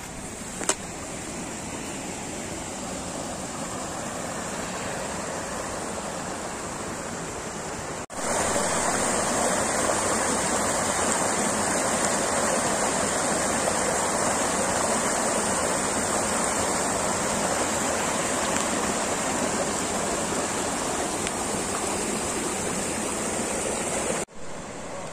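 Steady rushing of running water from a mountain stream, with a short sharp click just after the start. It jumps abruptly louder about eight seconds in and drops back near the end.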